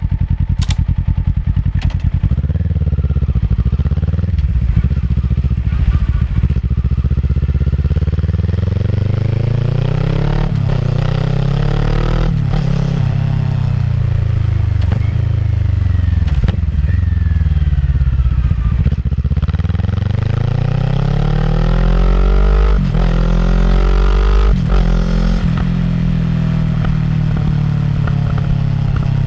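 Kawasaki ER-6f's 649 cc parallel-twin engine through a Yoshimura full-system exhaust, its note climbing and falling over and over as the bike is run up and eased off, with breaks in the pitch several times.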